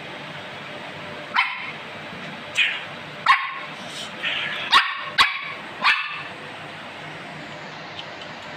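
A small Lhasa apso dog barking: about six short, sharp yaps spaced irregularly, which stop a little over halfway through.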